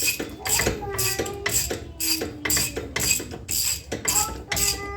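Hand ratchet wrench being cranked back and forth, with a burst of clicking on each stroke at about two to three strokes a second, as suspension bolts are loosened to take out a car's rear subframe.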